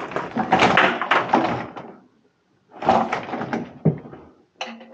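Water heater tank scraping and knocking against the wall and its mounting as it is pushed and shifted into place, in two spells with a brief silence between, the first about two seconds long.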